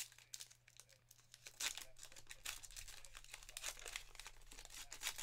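Foil wrapper of a baseball card pack crinkling as it is torn open by hand. It starts with a few scattered clicks and becomes a dense crackle from about a second and a half in.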